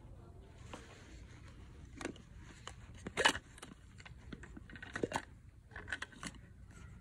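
Handling noise: rustling with scattered clicks and knocks as a quilted fabric tote bag and a plastic kid's tumbler with a straw are touched and moved about, with one sharper knock about three seconds in.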